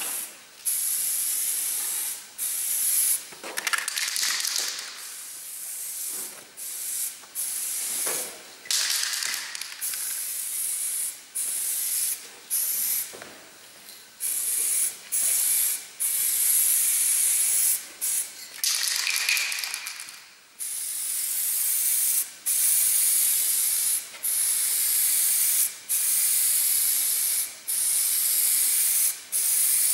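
Clear protective varnish being sprayed over an oil painting in repeated short hissing bursts with brief pauses between them, coming at an even pace of about one a second in the second half.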